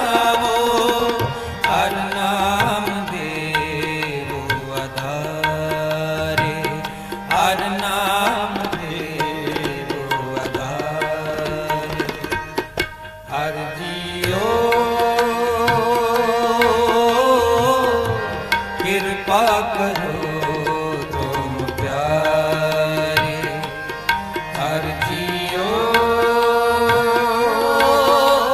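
Gurbani shabad kirtan music: tabla playing under a melody line that slides up into long held notes. The music dips briefly about halfway through.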